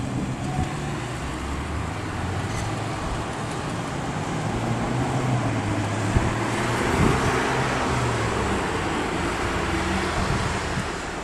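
Road traffic: a motor vehicle's engine running with a low, steady hum, and road noise swelling about halfway through before easing off.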